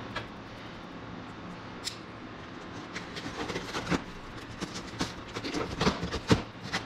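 Knife slitting the packing tape on a cardboard box resting on a steel bench, with a quick run of scratchy cuts, rustles and sharp knocks from about three seconds in. A steady low hum sits under it throughout.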